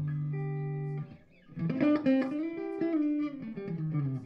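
Duesenberg Starplayer TV electric guitar played through the EF86 channel of a Risen Legacy valve amplifier into Warehouse Guitar Speakers ET65 and Veteran 30 speakers. A chord rings for about a second and stops. After a short gap comes a phrase with a note bent up and back down, then held notes near the end.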